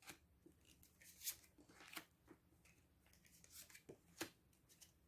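Near silence broken by a few faint, brief clicks and rustles of fortune-telling cards being handled and laid down, the clearest about a second in and just after four seconds.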